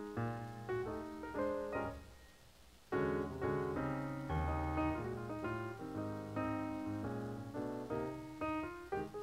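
Background piano music, a stream of struck notes and chords. It falls away about two seconds in and comes back fuller about a second later.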